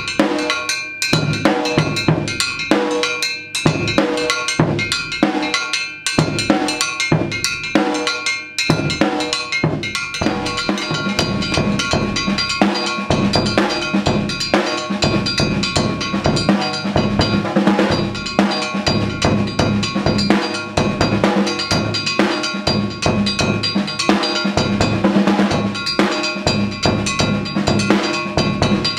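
Drumming on a kit that includes a car tailpipe used as a percussion instrument: ringing metallic strikes on the pipe mixed with bass drum and snare hits. For about the first ten seconds the strokes come in spaced groups with short gaps; after that the playing runs on as a dense, continuous groove.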